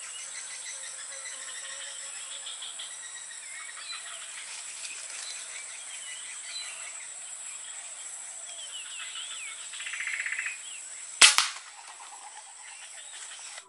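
Forest ambience of bird chirps and a steady high insect drone, then about eleven seconds in a single sharp gunshot from a hunting gun aimed at pigeons and doves, with a second, quieter crack right after it.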